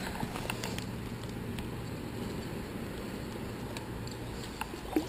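Faint handling noise as a caught trout is put on a stringer at the water's edge: a few light scattered clicks over a low steady background.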